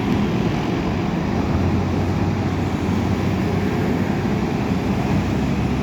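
Diesel engine of heavy earthmoving machinery running steadily, a low hum growing stronger about a second and a half in.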